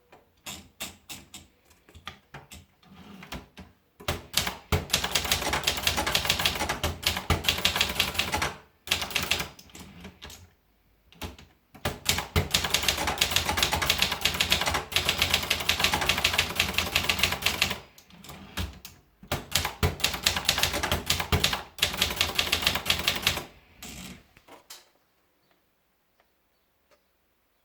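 Vendex 800 typewriter being typed on: long runs of fast, even keystrokes separated by short pauses, with a few slower strokes at the start. The typing stops about 25 seconds in.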